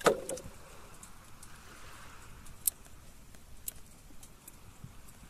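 A sharp knock right at the start, then scattered light clicks and taps, one sharper about two and a half seconds in: gear being handled in a small boat.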